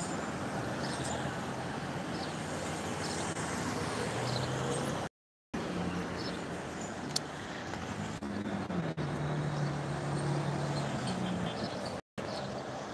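Road traffic: cars passing through a junction, their engines humming over a steady wash of road noise. The sound cuts out completely for about half a second near the middle and again for a moment near the end.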